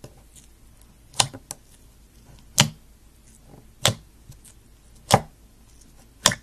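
A finger poking glittery slime pressed into a clear plastic tub, each poke giving one sharp pop or click: five of them, evenly spaced about one and a quarter seconds apart.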